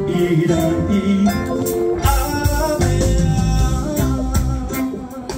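Live band playing: guitar, keyboard and drums, with a heavier bass and drum beat coming in about two seconds in.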